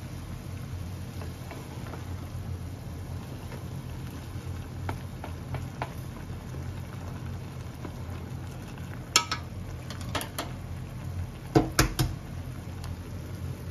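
Ramen broth simmering in an aluminium pot over a steady low hum, while wooden chopsticks stir the noodles. In the second half the chopsticks knock against the pot several times in sharp clicks.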